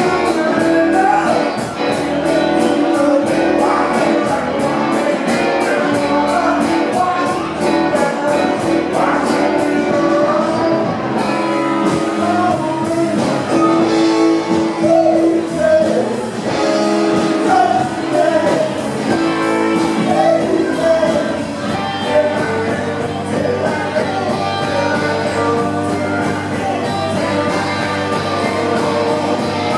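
A live rock band playing a song with a lead vocalist singing over electric guitars, keyboard and percussion. A quick, even high ticking from the percussion keeps time for about the first ten seconds, then drops out.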